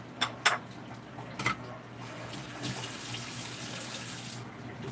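Kitchen tap running into a stainless steel sink during washing-up, coming on about two seconds in after three sharp knocks.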